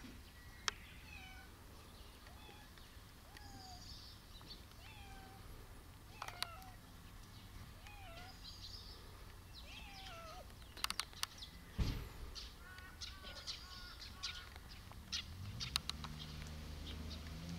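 A cat meowing softly in short, repeated calls, with birds chirping in the background. A few sharp clicks, the loudest about two-thirds of the way in.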